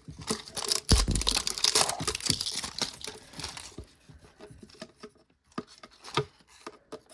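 Plastic wrapping on a toy package being torn and crinkled by hand, densely for the first four seconds or so, then a few scattered small clicks and rustles.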